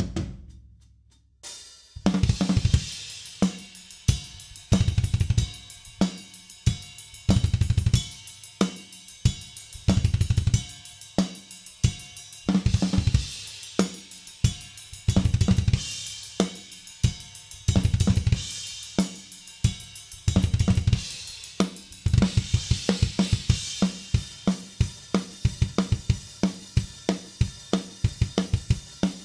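Drum kit played alone: after a brief pause and a single hit, a groove starts with snare, cymbal crashes and repeated runs of fast bass drum strokes. About twenty-two seconds in it turns into a steady, faster beat under constant cymbal wash.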